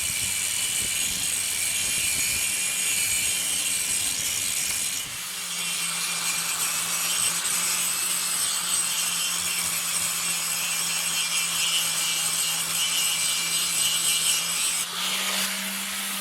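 Electric power tool running steadily with a motor hum and a high whine, its abrasive rubbing against the workpiece. About a second before the end the rubbing and whine stop, and the motor hum rises slightly as it runs free.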